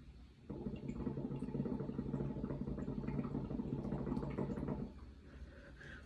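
A steady rushing noise that starts about half a second in and stops shortly before the end, about four seconds long.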